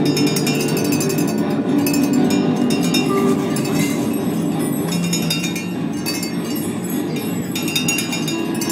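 Live improvised percussion music: a dense, irregular clinking and jingling of small metal and glass-like objects over sustained lower tones.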